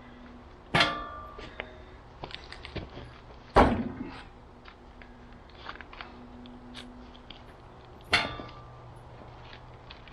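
Three loud metal clanks with a ringing tail, a few seconds apart, with lighter knocks in between: metal parts being struck or set while a log is positioned on a bandsaw mill.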